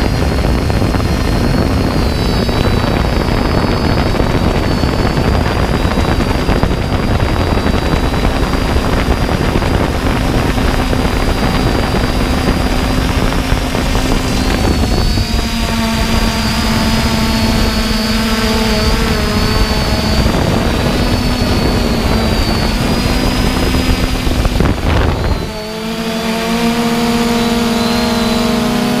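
3DR Iris+ quadcopter's electric motors and propellers humming steadily with a high whine, heard from the camera on the drone under a heavy low wind rumble. About halfway through the rumble eases and more motor tones come through. A few seconds before the end there is a brief dip, after which the motor tones change pitch.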